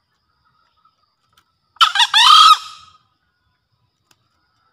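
Male green junglefowl crowing once, a short crow of about a second: a few quick choppy notes running into a held final note, about two seconds in.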